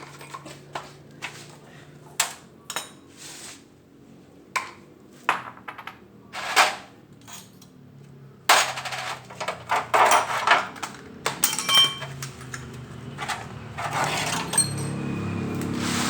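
Irregular metallic clinks and clanks of tools and steel parts being handled and knocked together, some ringing briefly. A low steady hum comes up near the end.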